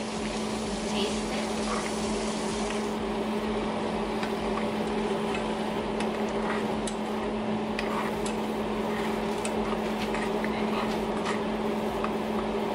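Steady kitchen appliance hum, with light scattered clinks of a spoon stirring a simmering liquid in a metal saucepan on a gas stove.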